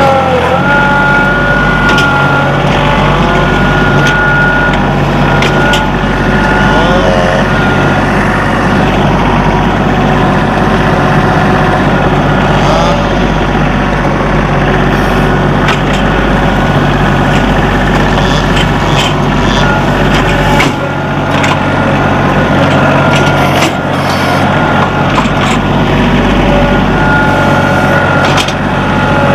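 Compact tractor engine running steadily while driving over rough ground, a constant loud drone with a few brief wavering whines.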